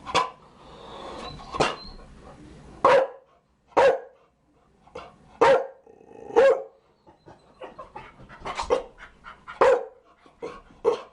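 Chow Chow barking: single barks roughly once a second, then a quicker run of shorter barks in the second half.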